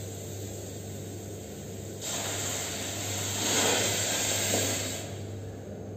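Water poured into a steel kadhai of sugar on a lit gas burner for sugar syrup: a splashing, hissing pour that starts about two seconds in, is loudest in the middle and stops about a second before the end.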